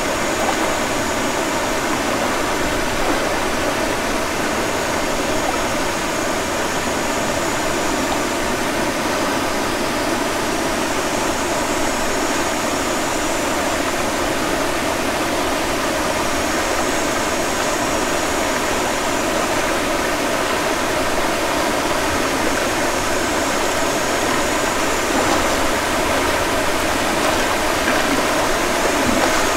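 Flowing stream water rushing steadily over rocks, with a faint high-pitched shrill that swells and fades several times.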